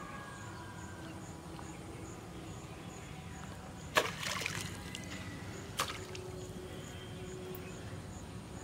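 Pond water splashing sharply once about four seconds in, as a hooked fish thrashes at the surface by the line, with a shorter second splash nearly two seconds later.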